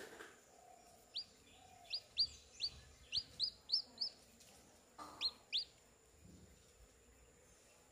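Newly hatched chick peeping: a run of about eight short, high, upward-sliding peeps, then two more about five seconds in.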